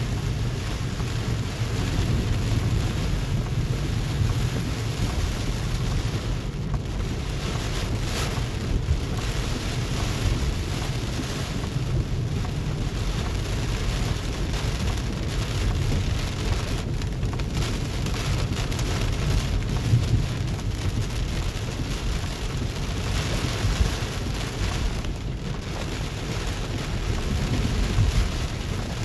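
Heavy rain pelting the roof and windshield of a moving car, heard from inside the cabin as a steady dense patter. Under it runs a constant low rumble from the car on the wet road.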